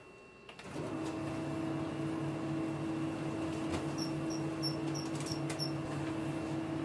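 Office copier-scanner starting up less than a second in and running a scan: a steady mechanical hum with a low pulsing drone under it and a hiss of fan noise.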